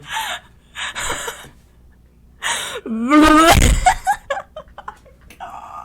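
A person making a funny vocal noise: short breathy, hissing huffs, then a loud pitched squeal-like vocal sound about three seconds in that lasts under a second, with more breathy huffs near the end.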